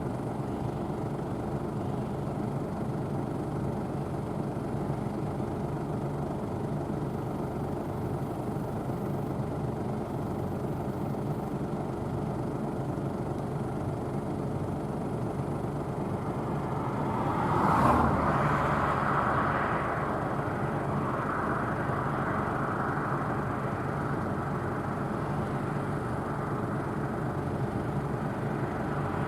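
Claas Tucano 570 combine harvester running steadily while cutting barley, with its engine and threshing machinery making a continuous mechanical noise. The sound grows louder for a couple of seconds about two-thirds of the way through, then settles with a somewhat brighter, fuller tone.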